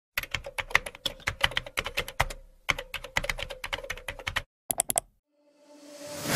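Computer keyboard typing: quick runs of key clicks with a short break, then a last few keystrokes about five seconds in. A rising swell of music comes in near the end.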